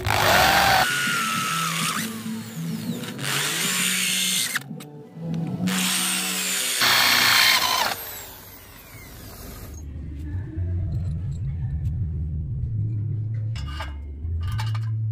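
Electric power tool running in several loud bursts, its pitch gliding as it speeds up and slows down, winding down about eight seconds in.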